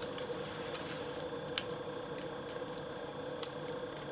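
A few faint, scattered clicks of a hard plastic Kabuticks Zector toy being handled and worked off its wrist brace, over a faint steady hum.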